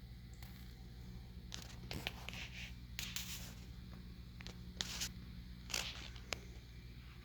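Handling noise: a series of short scraping and rustling sounds over a low steady hum.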